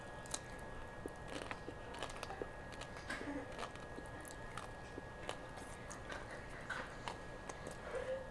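A person chewing a mouthful of crispy pan-fried chow mein noodles: faint crunching with scattered small crackles.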